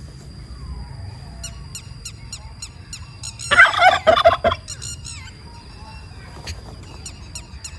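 Domestic turkey gobbling once, a rattling call lasting about a second, starting about three and a half seconds in. Faint, quick high chirps repeat in the background.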